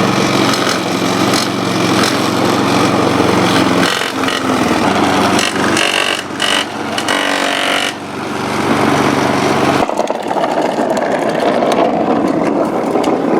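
Lawn mower engine running steadily, its character shifting partway through; about ten seconds in the low engine drone drops away, leaving a rough hiss.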